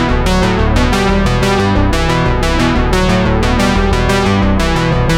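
Background music with keyboard and synthesizer and a steady beat.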